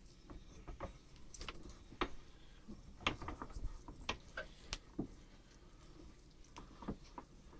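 Vintage Sargent and Company hand-cranked meat grinder being turned on a piece of ham: faint, irregular clicks and knocks.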